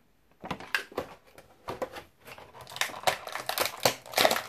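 Clear plastic blister packaging crinkling and crackling in irregular bursts as it is handled and pulled at by hand, getting denser and louder near the end.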